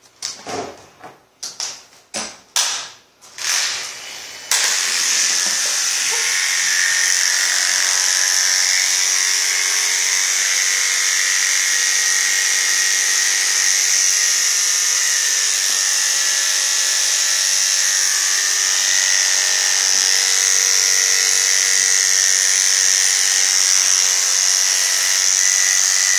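Electric pet grooming clippers buzzing as they trim a Yorkshire Terrier's coat: a few short bursts in the first seconds, then running steadily from about four and a half seconds in.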